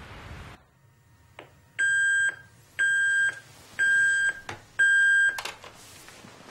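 Digital alarm clock beeping: four electronic beeps of about half a second each, one a second, then a short rustle as they stop.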